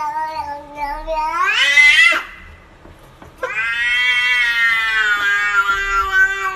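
Domestic cat giving two long, drawn-out yowls. The first sweeps up in pitch and breaks off about two seconds in; the second starts about a second later, is held for about three seconds and sags slightly in pitch at the end.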